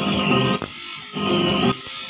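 Motor-driven grinding disc sharpening the teeth of a sawmill bandsaw blade, with a rasping grind that repeats about twice a second as each tooth is ground in turn. The teeth are being reground after the blade ran into nails.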